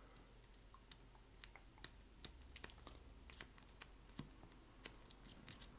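Faint, irregular light clicks and taps of collectible playing cards being handled and set down on a table, a dozen or so scattered through otherwise quiet room tone.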